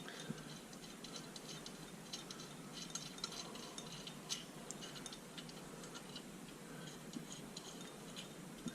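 Faint, scattered light metallic clicks and ticks from hitch hardware being handled, over a low steady background noise.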